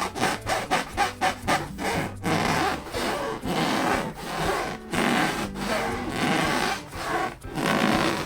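Latex balloon rubbed and squeezed by hand in repeated strokes: quick short rubs, about five a second, for the first couple of seconds, then slower, longer strokes.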